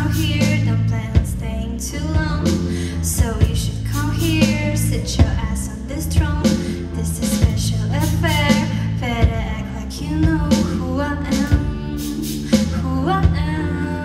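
Live band playing a song: a girl singing the lead over keyboard, electric guitar and drums, with a steady drum beat.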